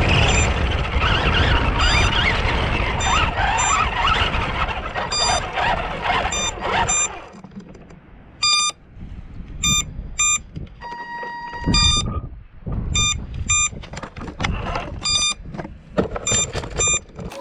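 Arrma Granite 4x4 RC truck driving, its motor and tyres making a loud, rough noise that dies away about seven seconds in. After that comes a run of short electronic beeps in quick groups, with one longer steady tone in the middle.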